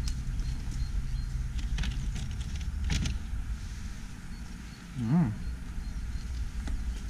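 Outdoor ambience with a steady low rumble on the microphone and a sharp click about three seconds in. About five seconds in comes a short hummed voice sound that rises and falls in pitch.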